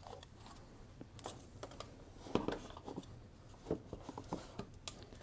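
Faint, scattered clicks and knocks of hard plastic: DJI Mavic Pro flight batteries and their charging hub being handled and fitted together.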